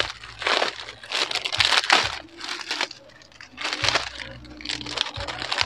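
Plastic packaging crinkling and tearing as a parcel is opened by hand, in irregular bursts with a short lull about halfway through.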